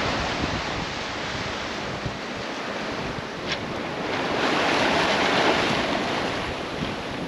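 Sea water rushing and splashing past the hulls of a sailing catamaran under way, with wind on the microphone. The rush swells louder about halfway through.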